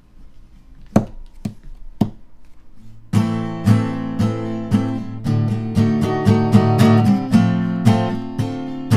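Acoustic guitar strumming chords at a steady rhythm, starting about three seconds in after three sharp taps half a second apart.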